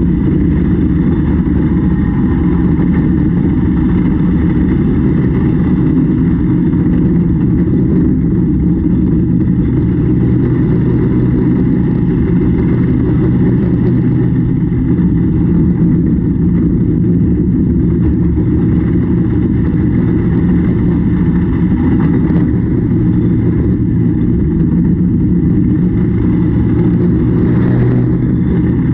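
Large farm machine's engine running at a steady, unchanging drone, deep and even.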